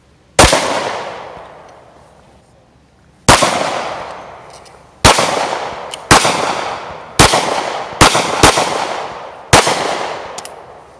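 Semi-automatic pistol fired eight times at an uneven pace, the shots from about half a second to three seconds apart, each followed by a long fading echo.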